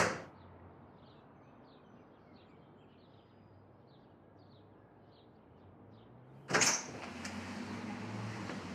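A door shuts with a sharp bang right at the start and dies away within half a second, leaving a hush with faint, evenly spaced high chirps. About six and a half seconds in the door opens with a sudden whoosh, and a steady background noise rises after it.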